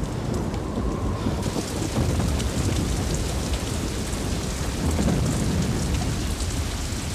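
Heavy, steady rain-like rushing noise with a deep rumble underneath. It turns brighter and louder about a second and a half in.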